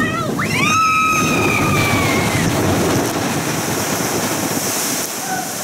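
A log flume boat going over its big drop: a rider's scream rises sharply and is held for about two seconds, over a loud rush of water that turns into hissing spray as the boat splashes down.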